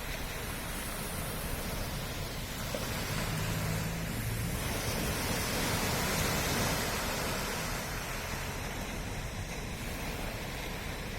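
Sea waves washing onto the shore in a steady wash, with one wave building to a peak about midway and then falling away.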